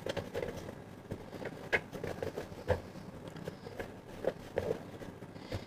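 Faint rustling of cloth as a twisted dupatta is handled and bound with a rubber band on a bed, with a few light taps and scrapes scattered through it.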